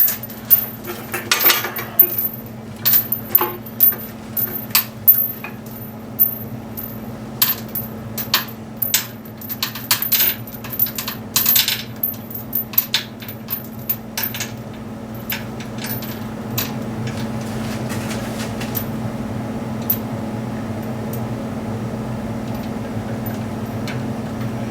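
Heavy steel lifting chain clinking and rattling link against link in irregular metallic clinks as the engine is taken up on the hoist, thinning out after about fifteen seconds. A steady hum grows louder in the second half.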